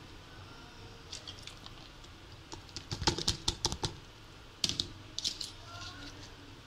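Quick light clicks and taps of a plastic grinder jar and the herbs in it being handled, coming in two clusters about three and five seconds in. The grinder motor is not running.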